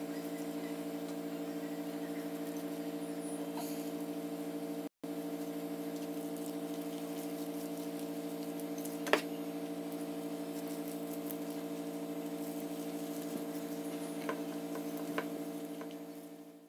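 A steady hum of several held low pitches, unchanging, that drops out for an instant about five seconds in. Over it come a few faint clicks and soft squishes from hands working oil into flour in a clay bowl, with one sharper click about nine seconds in.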